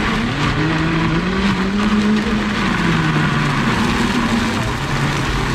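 Countertop blender motor running, churning ice and fruit into a smoothie. The motor's hum wavers up and down in pitch as the load in the jar shifts.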